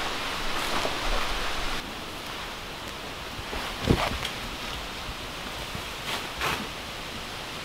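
Steady outdoor background hiss with a few light handling knocks on a wooden table; the loudest is one dull thump about four seconds in, and two lighter taps follow about six seconds in.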